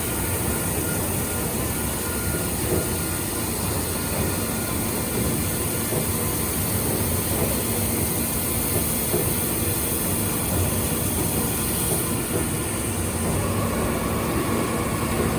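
Milling machine running through a fine milling pass on A2 steel plate: a steady mechanical din with a faint high whine that shifts slightly in pitch near the end.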